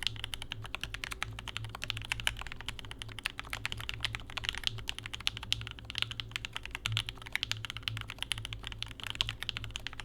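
Fast, continuous typing on a custom mechanical keyboard: a Gerald65 hotswap Arisu-layout board in a gasket-mounted stacked acrylic case, with C3Equalz Tangerine linear switches lubed with Krytox 205g0 and filmed, and GMK keycaps. Keystrokes follow one another rapidly, with no pauses.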